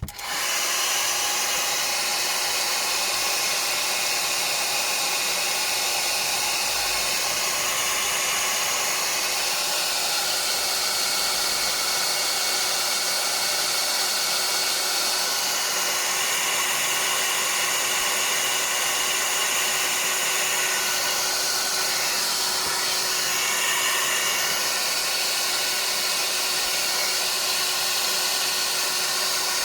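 Hair dryer switched on and blowing steadily with a faint hum, heating a smartphone's back cover to loosen it before it is pried open.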